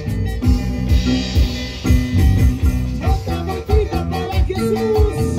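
Live band playing Latin-style praise music with a steady beat and bass.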